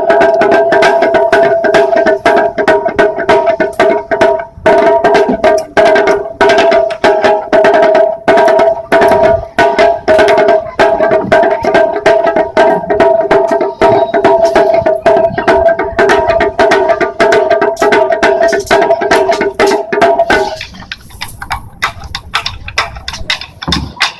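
Japanese taiko drums beaten in a fast, dense rhythm, with a steady pitched tone held over them. About twenty seconds in the tone stops and the drumming drops to quieter strokes.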